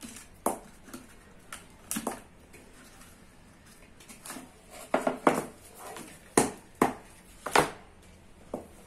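Irregular sharp clicks and clinks of metal being handled inside an opened e-rickshaw battery charger's metal casing, a few light ones at first and several louder knocks in the second half.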